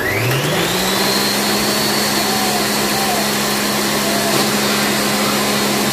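Ninja countertop blender's motor spinning up with a rising whine over the first second, then running steadily as it blends oil, onions and spices into a paste.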